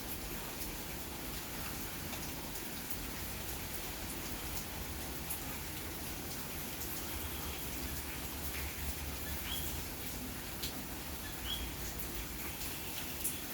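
Steady night rain falling, with scattered raindrop ticks. Common coquí frogs (Eleutherodactylus coqui) call in the rain, a few short rising chirps about two seconds apart in the second half.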